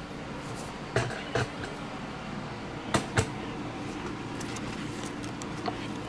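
A few sharp knocks and clicks of things being handled on a workbench, in two pairs about two seconds apart followed by fainter ticks, over a steady low hum of room tone.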